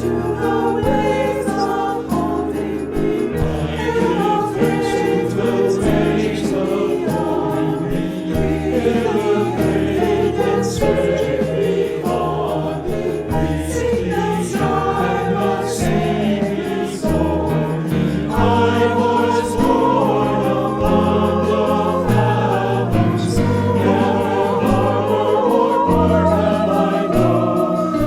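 A choir singing with instrumental accompaniment, the low notes holding and changing under the voices.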